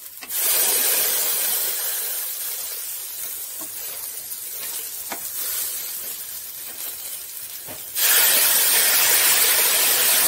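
Ground masala paste thinned with hot water poured into hot oil and fried onions in a pan, sizzling and hissing as it hits. The sizzle fades gradually, then grows louder again about eight seconds in.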